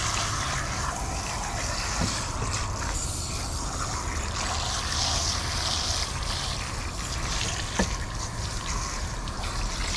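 Garden hose pistol-grip spray nozzle running, water rinsing out a freshly cleaned fish: a steady hiss of spray and splashing, with two small knocks, about two seconds in and near the end.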